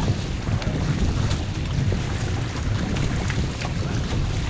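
Wind buffeting the microphone over water rushing and splashing along an outrigger racing canoe under way, with the splashes of paddle strokes.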